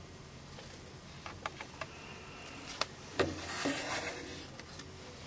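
Small plastic parts of a Nokia N-Gage QD phone being handled as its antenna is removed: a few light clicks, then a sharper click about three seconds in followed by a brief scraping rustle.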